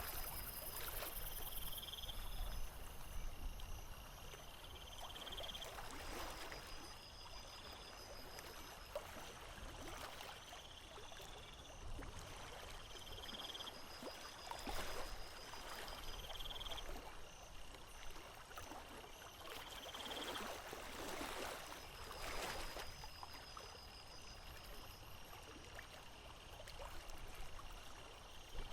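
Small waves lapping, in soft swells every few seconds. Short, high trilling calls repeat throughout.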